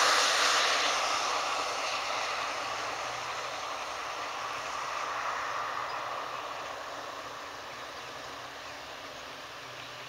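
Road traffic noise: a passing vehicle's tyre and engine noise, a steady rushing that fades slowly as it moves away.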